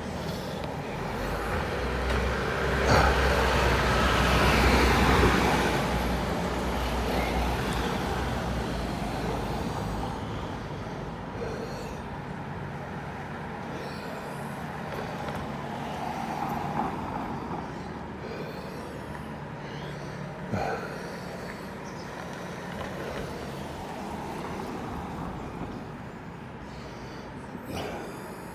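Road traffic: a heavy vehicle's low engine rumble swells and fades over the first ten seconds or so, leaving a steadier traffic background. A few short knocks stand out, the loudest about 21 seconds in.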